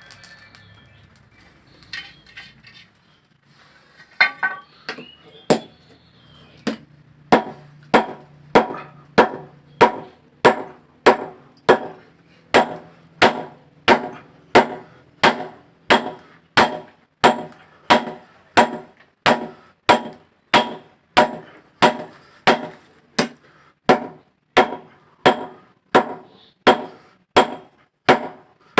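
Hand-hammer blows ringing on steel at the anvil as a blacksmith forges a hoe blade from scrap channel iron. A few scattered strikes come first, then a steady run of ringing blows, nearly two a second.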